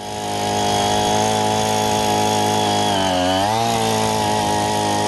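Small-engine power soil auger running at high revs as it drills into the ground. The engine note dips briefly about three seconds in and then picks back up.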